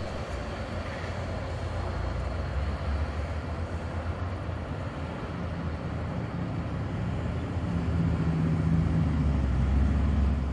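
Street traffic noise with a tram running away along the street. A steady low rumble swells toward the end.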